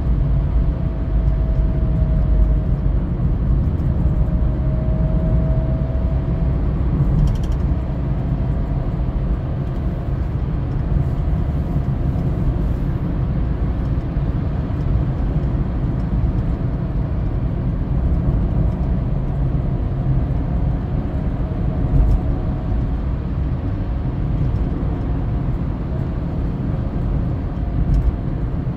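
Steady low rumble of tyres and engine heard inside a car cruising at highway speed, with a faint whine that wavers in pitch and comes and goes.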